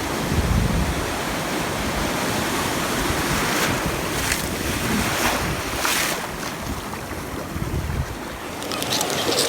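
Ocean surf breaking and washing around, with wind buffeting the microphone. Two louder surges of rushing water come about four and six seconds in.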